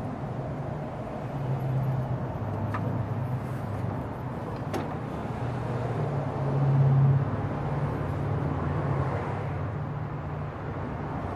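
Steady low hum of a motor vehicle's engine running nearby, its pitch shifting a little over the seconds, with two light clicks about three and five seconds in.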